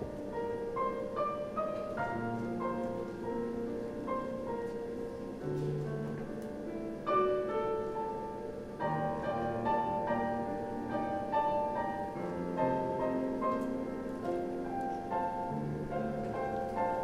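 Piano music playing: a flowing classical-style piece of struck, sustained notes.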